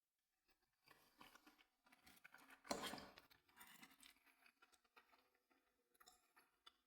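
Faint eating sounds, a scatter of small clicks and mouth noises, with one louder burst about three seconds in.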